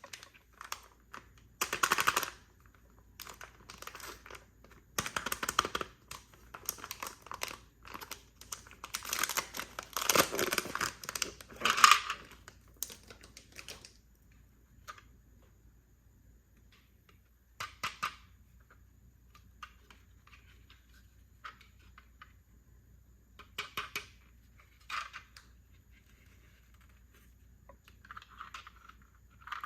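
Plastic packaging crinkling and tearing as a miniature toy set is unboxed, with small plastic pieces clicking as they are handled. The rustling comes in close bursts for the first dozen seconds, then thins to scattered clicks and short rustles.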